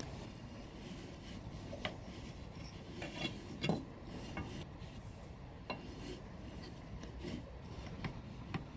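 Wooden parts of a home-made rigid heddle loom being handled: scattered light wooden knocks and clicks as the toothed ratchet gear is fitted onto the warp beam, with some rubbing of wood on wood.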